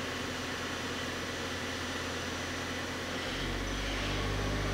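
Daewoo Puma 230MB CNC lathe's main spindle running at speed, a steady machine hum. About three seconds in the hum shifts to new low tones and gets louder as the spindle changes to a new speed.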